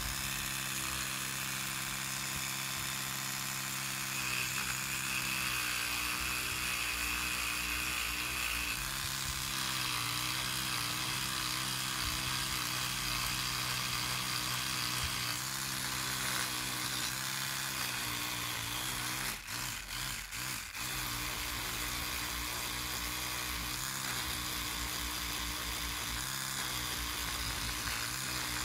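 Oscillating electric toothbrush running with a steady buzz as its round head scrubs loose surface rust from a rusty steel grip frame. The hum falters briefly three times about two-thirds of the way through.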